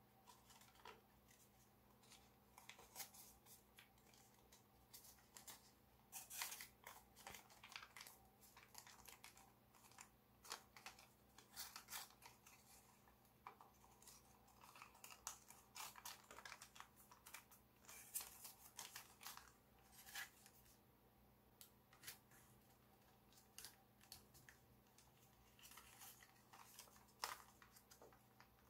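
Faint, irregular crackling and rustling of gold foil-backed origami paper being folded and creased by hand, in short sharp crinkles.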